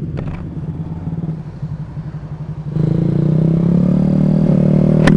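Automatic scooter's small engine idling with a low pulsing note while stopped at a red light, then opened up about three seconds in, its note stepping up in loudness and rising in pitch as it pulls away. A sharp click just before the end.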